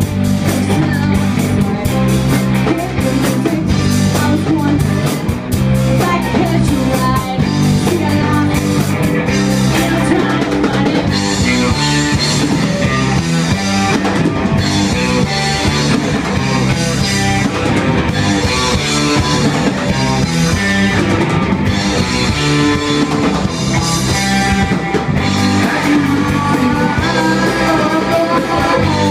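Punk rock band playing live: electric guitar, bass guitar and drum kit, with singing.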